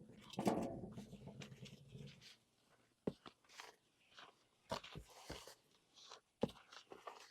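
A drawn-out animal call with a falling pitch fades out about two seconds in, followed by faint scattered knocks and scrapes of hands working a dry dust-bath mix of dirt and rosemary in a plastic mixing tub.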